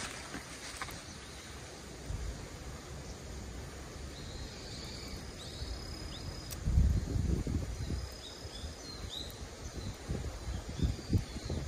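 Outdoor ambience with faint, short bird chirps, and gusts of wind buffeting the microphone from about seven seconds in.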